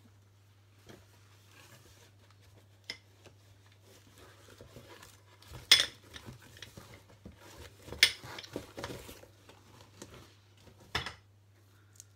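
Small hard objects being handled and set down on a tabletop: scattered clicks and clinks, the sharpest about six and eight seconds in, over a steady low hum that stops near the end.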